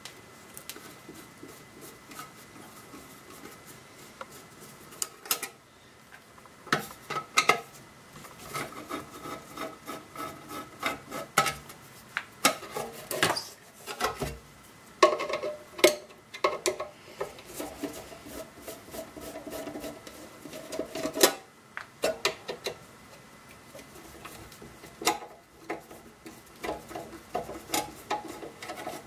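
Hand tools working on an old battery charger's case as it is opened up: irregular clicks, knocks, clinks and scraping, busiest in the middle stretch.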